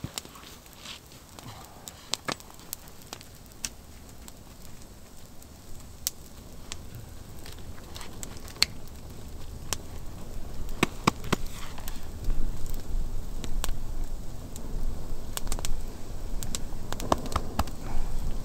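Wood fire crackling with scattered sharp pops, over a low rumble that grows louder from about six seconds in.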